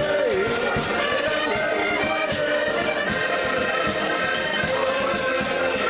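An ensemble of accordions playing a lively traditional folk tune together, full held chords over a steady beat.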